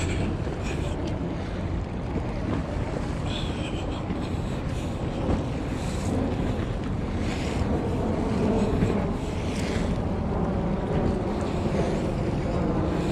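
Steady wind noise buffeting the microphone, over the wash of waves on a beach.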